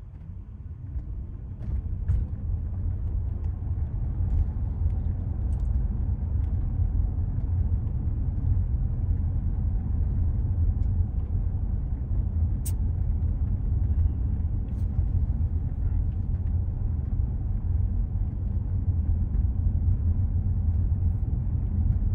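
Tyre and road noise inside a Tesla's cabin: a steady low rumble that grows louder over the first couple of seconds as the electric car picks up speed, then holds. A single sharp click sounds about two-thirds of the way through.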